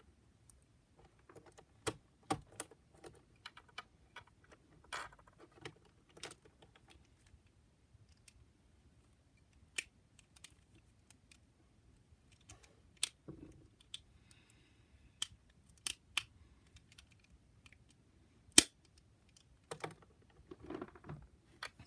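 Hard plastic clicks and snaps from a GAN speedcube being reassembled by hand, as pieces are pushed and popped into place, with soft handling rattle between them. The clicks come irregularly, a few seconds apart, with one sharp snap toward the end.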